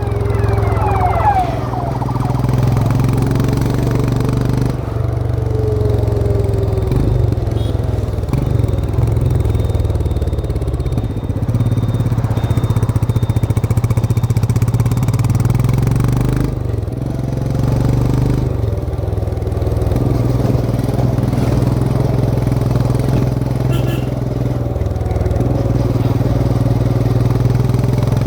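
Royal Enfield Himalayan 411's 411 cc single-cylinder engine running under way, heard from the rider's seat as a steady, thumping engine note. The note drops briefly about five seconds in, twice in the middle, and once near the end.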